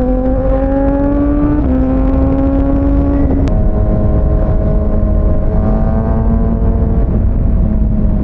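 Kawasaki ZX-6R inline-four engine pulling under load while riding, its pitch climbing steadily and dropping sharply at upshifts about one and a half and three and a half seconds in, with a further drop near the end, over a steady low wind rumble.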